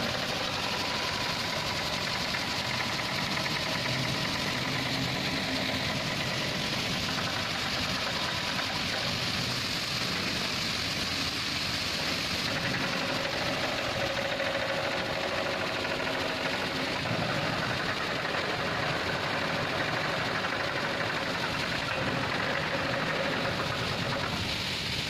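Water pouring over the top of a steel spillway flap gate as a steady rush, with a faint steady hum underneath.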